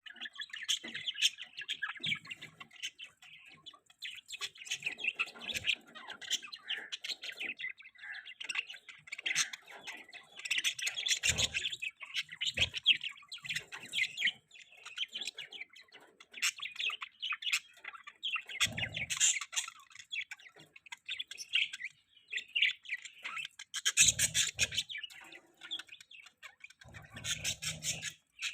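Budgerigars chirping and chattering nonstop in a dense, busy warble, with a few brief low thumps now and then.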